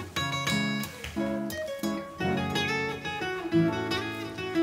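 Background music: acoustic guitar playing a rhythmic run of plucked and strummed notes.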